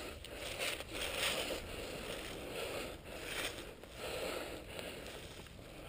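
Footsteps crunching on dry pine-needle forest litter with clothing and gear rustling, as the wearer moves quickly; the rustle comes in uneven surges.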